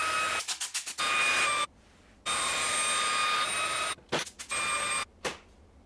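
Handheld stick vacuum with a brush attachment running: a steady motor whine that stops briefly about two seconds in and runs again. Near the end come several sharp clicks and knocks as a PC case's top panel is fitted back in place.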